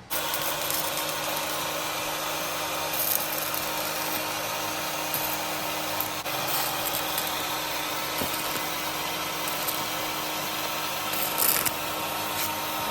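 Electric arc welding on the sheet-metal back of a truck cab: a steady, harsh crackling hiss with a few brief flare-ups, cutting in and out abruptly.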